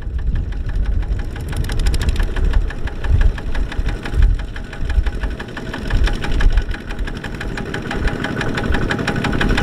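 Single-cylinder diesel engine of a Kubota ZT140 two-wheel walking tractor running steadily, with the fast, even knocking beat of a single-cylinder diesel.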